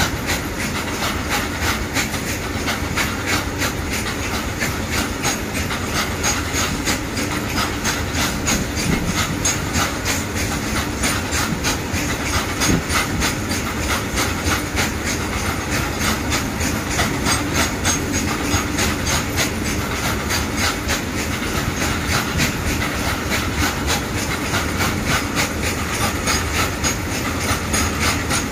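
Loaded freight train of open-top wagons rolling past: a steady rumble and hiss of steel wheels on the rails, with a fast, regular clicking as the wheels run over rail joints.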